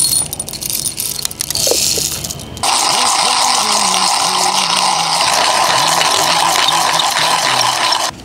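Light clattering, then a steady rush of running water that starts abruptly about two and a half seconds in and cuts off sharply about five seconds later, with music playing underneath.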